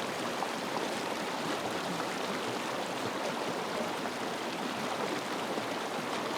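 Mountain stream rushing steadily, an even hiss of running water.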